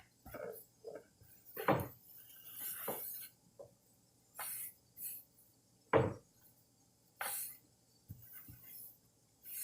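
Scattered light knocks and clinks of kitchen handling while marshmallow slime is worked with powdered sugar, about nine separate taps with the sharpest one about six seconds in.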